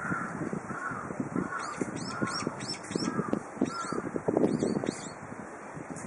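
Wild birds calling in wind: a steady series of mid-pitched calls, roughly one every half-second to second, over many quick high chirps from smaller birds. Gusts of wind buffet the microphone, strongest about two-thirds of the way in.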